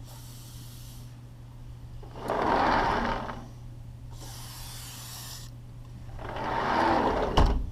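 A sliding door rolls along its freshly lubricated track, two passes of about a second each, and it runs smoothly after cleaning and silicone lubrication. Brief hissing bursts come between the passes, and a low thump near the end.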